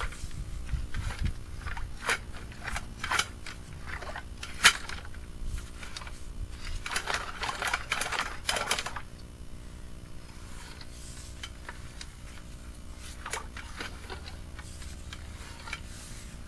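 Irregular clicks, knocks and scraping as a sewer inspection camera's push cable is fed down a clay sewer line. There is a longer scraping rush a little past the middle, and it eases to a low steady hum near the end.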